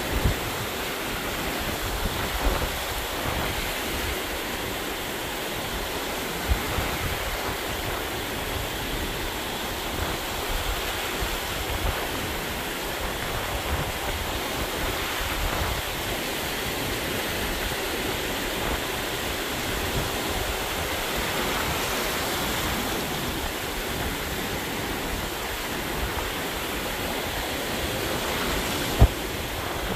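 Ocean surf washing in steadily, with gusty wind buffeting the camcorder's microphone. There is a brief sharp thump near the end.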